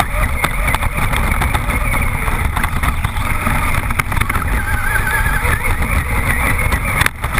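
Traxxas Rustler VXL brushless electric RC truck driving hard over dirt and dry grass, heard from its onboard camera: heavy low rumble of wind and chassis vibration, a wavering high motor whine, and scattered clicks of debris and knocks. The sound dips briefly near the end.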